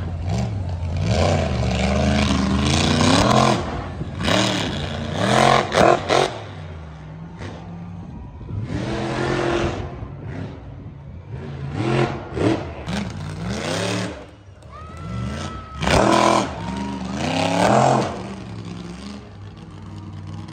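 Monster truck engine revving again and again, its pitch climbing and falling in repeated swells with brief dips between.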